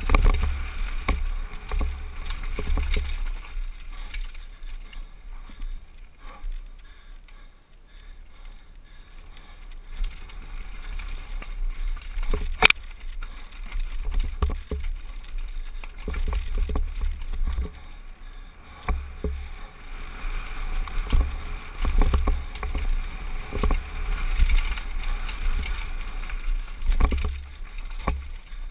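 Downhill mountain bike ridden fast over a rocky trail, heard from a helmet mic: wind buffeting the microphone in gusts, with the bike rattling and tyres knocking over rocks. One sharp, loud knock a little before halfway.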